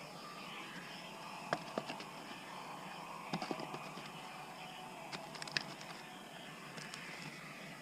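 Scattered sharp clicks and knocks, several in quick little clusters, over a steady background hiss: a hand digging tool striking soil and rock during trail work.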